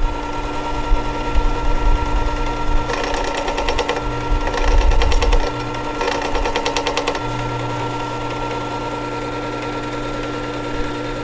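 Work Sharp powered sharpener running with a steady motor hum while a steel timber-framing chisel's bevel is ground on its spinning 1000-grit abrasive disc. The grinding is louder and rougher in stretches between about three and seven seconds in.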